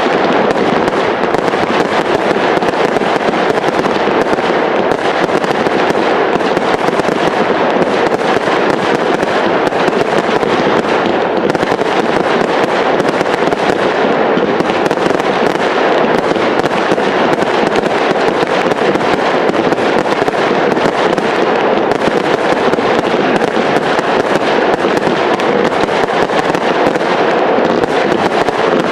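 Fireworks crackling: a dense, unbroken mass of small pops and crackles running together, loud and steady with no single big bang standing out.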